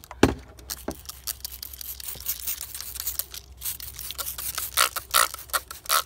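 Trigger spray bottle squirting water in repeated short bursts, wetting the inside of a felted-wool evaporative cooler to keep it cooling; the squirts come quicker and louder in the last couple of seconds. A single knock just after the start is the loudest sound.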